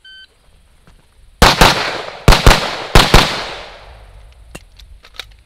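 Six shots from a 9mm Sig P320 pistol in a Flux Raider chassis, fired as three quick pairs about half a second apart, each pair ringing out afterwards. A short electronic beep sounds just before them.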